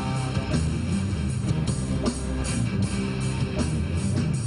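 Rock band music led by guitar, with a steady drum beat.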